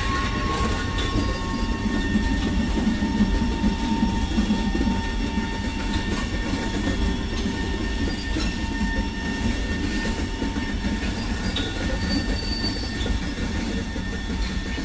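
Container freight train wagons rolling on the rails: a steady rumble, with thin high squeals from the wheels.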